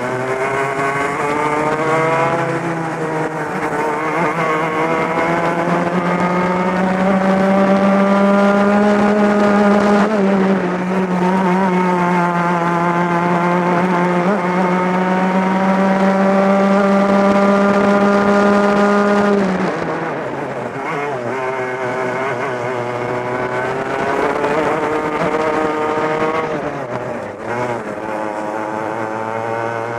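Two-stroke 100cc racing kart engine heard close up on board, revs climbing along the straights and holding high. About two-thirds through the revs drop sharply as the kart slows for a corner, then climb again.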